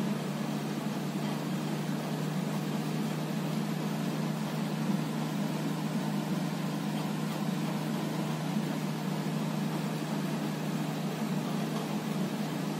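Steady low hum with an even hiss over it, unchanging, with no distinct events.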